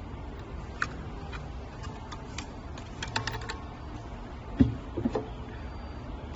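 Scattered light clicks and taps of small hard objects being handled, with a quick run of clicks about three seconds in and a dull knock a second and a half later, over a low steady hum.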